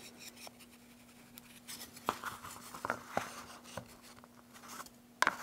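Light, scattered wooden clicks and taps as two guitar X-brace strips are pushed together at their notched crossing joint and set down on the guitar top, over a faint steady hum.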